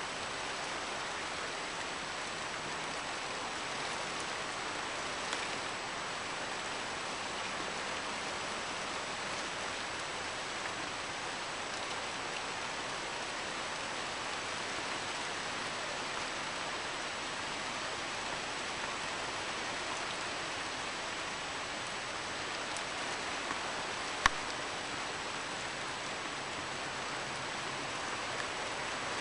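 Steady rain falling on trees and foliage, an even hiss, with a single sharp tap about three-quarters of the way through.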